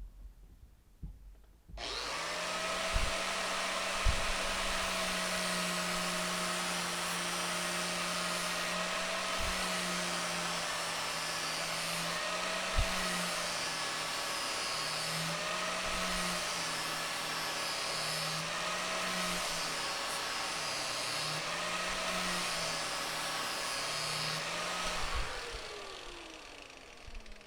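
Angle grinder with a 120-grit flap disc grinding the edge of a steel mower blade. The motor starts about two seconds in, and its whine dips and wavers as the disc is pressed against the blade. Near the end it is switched off and winds down.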